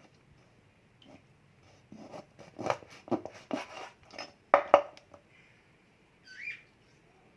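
Kitchen food-prep handling noises: a quick run of sharp knocks and crunches between about two and five seconds in, loudest near the end of the run, then a brief squeak a little later.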